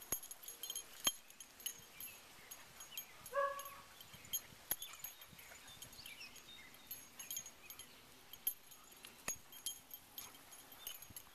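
Two greyhounds play-fighting: one short, high whine from one dog about a third of the way in, among scattered sharp clicks and light scuffling.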